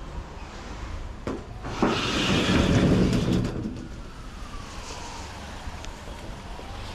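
A metal roller garage door rattling as it is pulled down. A click comes just before it, then about two seconds of clattering that starts suddenly and fades.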